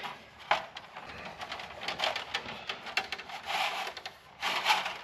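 Steel fish tape being handled and pulled from its plastic reel while pulling cable: irregular clicks and rattles, with a couple of brief scraping rubs in the second half.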